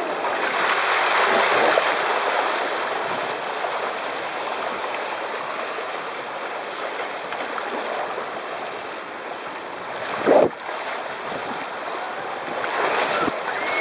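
Water rushing steadily down an open family waterslide under a sliding rider, heard from the rider's position on the slide. A single brief thump about ten seconds in.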